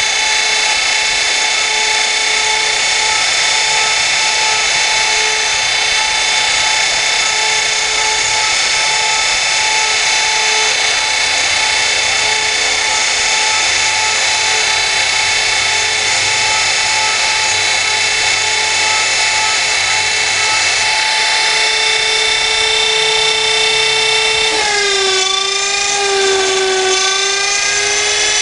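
CNC router spindle running with a steady high-pitched whine. Near the end its pitch dips, wavers and climbs back up.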